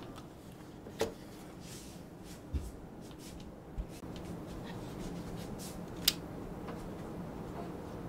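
Hands handling a Keychron K2V2 keyboard case and its sound-absorbing sheet: soft rubbing and rustling, with four short plastic clicks and taps, the sharpest about six seconds in.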